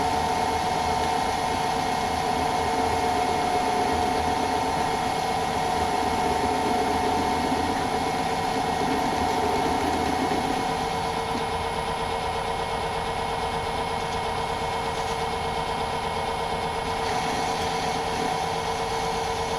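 Myford ML7 metal lathe running steadily, its motor and belt drive giving a constant hum with a whine on top while the tool faces off the end of the workpiece. The higher hiss eases about halfway through and picks up again near the end.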